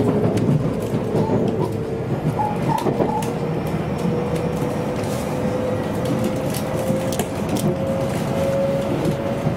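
Running noise heard inside an electric commuter train: a steady rumble of wheels on rail under a single motor whine that climbs slowly in pitch as the train gathers speed, with scattered light clicks.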